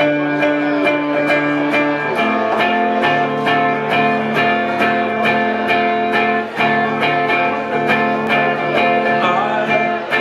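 Live band playing an instrumental intro: electric guitar strumming chords in a steady rhythm with drums, the chord changing about two seconds in.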